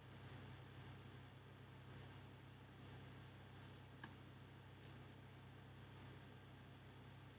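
Faint computer mouse clicks, about nine at irregular intervals, some in quick pairs, over a low steady hum.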